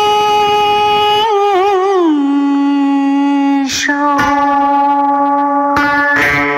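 Female cải lương singer holding a long drawn-out note with vibrato, sliding down to a lower held pitch about two seconds in, with music behind her. Near the end, plucked string notes come in.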